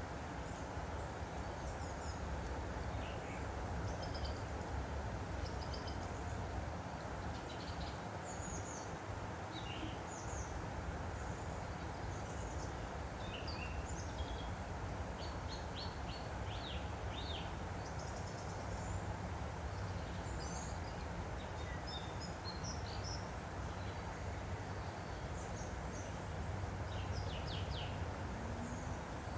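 Steady rush of a flowing woodland stream, with short high bird chirps and trills scattered throughout.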